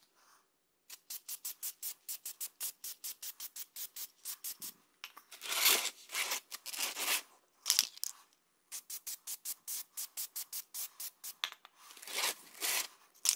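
Aerosol can of Plasti Dip shaken in quick, even clicks of its rattling mixing ball, sped up to triple speed. Short bursts of spray hiss break in about five seconds in and again near the end.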